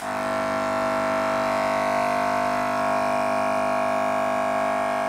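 Jinghao electric hair clipper switched on and running with a steady, even buzz, its blade freshly cleaned and oiled.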